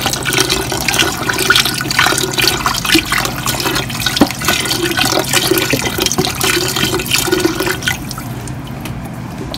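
Chicken broth pouring from a carton into a pot of thickened soup base, splashing and gurgling as it lands, easing off after about eight seconds.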